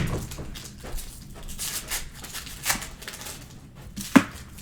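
Trading cards and card packs being handled on a table: scattered light rustles and taps, with one sharp knock about four seconds in.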